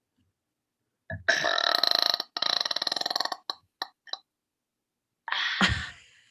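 A woman burping: one long, drawn-out burp of about two seconds with a brief break in the middle, a few small mouth clicks, then a second, shorter burp near the end.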